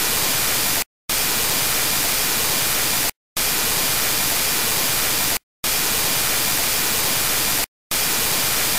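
Loud hiss of static white noise, switching off for a moment about every two seconds and coming straight back at the same level.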